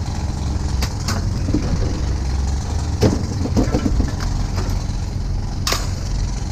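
A vehicle engine running steadily at a low rumble, with a few sharp clicks or knocks over it, about a second in, around three seconds and near the end.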